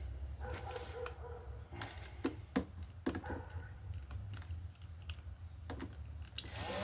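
Irregular light clicks and knocks of wooden pieces being handled and set in place on a work table.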